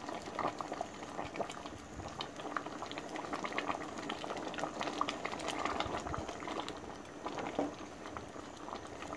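A pot of Thai bamboo-shoot curry bubbling at a steady rolling boil, a dense crackle of popping bubbles.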